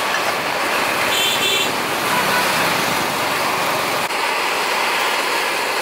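Street traffic noise: a steady wash of passing vehicles. A short high ringing tone sounds about a second in.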